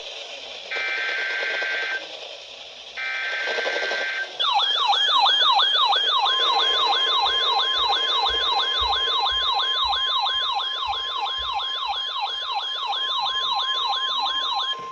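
Emergency alert header tones: two short bursts of buzzy two-tone digital data, typical of a NOAA Weather Radio SAME header. Then an electronic siren alarm wails, sweeping downward about two and a half times a second, and a steady high alarm tone joins it, typical of the weather radio warning tone.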